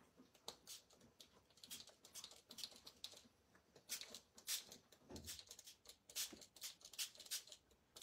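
Small pump spray bottle misting water onto inked watercolour paper: a quick run of faint short hisses, about three a second.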